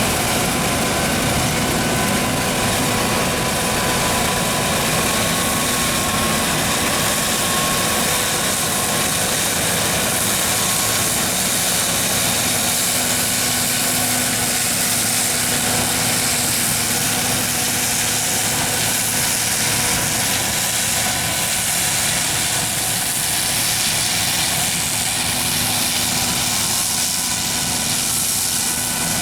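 John Deere 9400 combine running steadily, its diesel engine and machinery making a continuous drone with a strong high hiss and a few steady tones.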